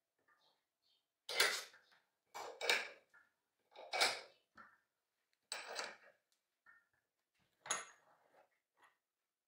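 Steel bench vice being wound tight on a steel bracket that holds a ball bearing, pressing the bearing into place: five sharp metal clunks roughly one to two seconds apart, each with a short ring, from the vice's handle bar and jaws.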